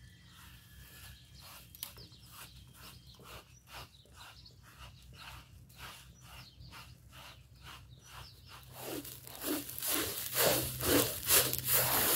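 Grains being rubbed and scraped around a large aluminium pan with a cloth over a wood fire, in regular strokes about two or three a second. The strokes grow louder about nine seconds in.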